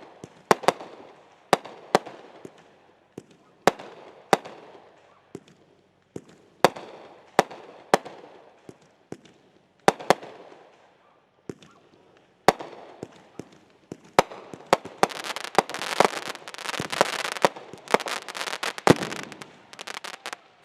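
Consumer fireworks going off: sharp bangs every second or so, each trailing off with an echo. About two-thirds of the way through they give way to several seconds of dense crackling.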